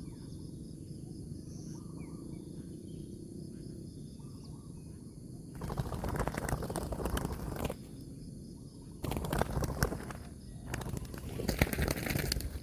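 Wings of a spotted dove flapping hard in three bursts, starting about halfway through. Before them, faint bird chirps and insects are heard in the background.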